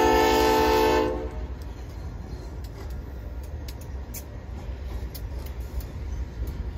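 Nathan K5HLB five-chime air horn on a Kansas City Southern freight locomotive sounding a chord for the crossing, cutting off about a second in. Then the steady low rumble of the diesel locomotives passing close by, with scattered light clicks.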